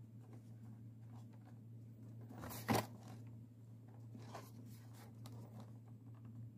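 A cardboard toy box being handled and turned over in the hands: faint scraping and rubbing of fingers on cardboard, with one sharp crackle about two and a half seconds in, over a steady low hum.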